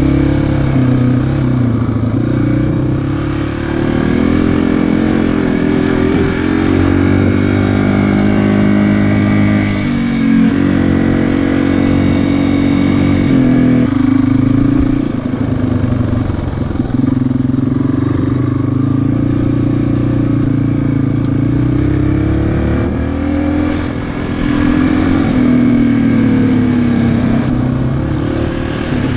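Dirt bike engine running under way, its pitch climbing and dropping repeatedly as the rider opens and eases off the throttle.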